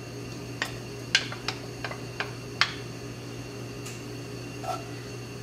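Wooden spoon knocking and scraping against a cast-iron skillet as butter is stirred into hot oil: a handful of sharp taps in the first three seconds and a couple more later, over a steady low hum.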